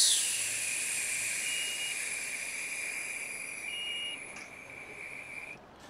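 Liquid flux hissing steadily under a hot soldering iron tip on a circuit board, with a faint thin whistle. It slowly fades as the flux boils off and cuts off abruptly shortly before the end, as the iron is lifted.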